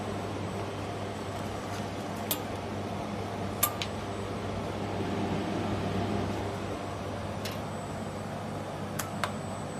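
Steady hum and fan noise from the 1000 W fiber laser welding machine and its equipment, with five sharp clicks spread through it, the last two close together near the end.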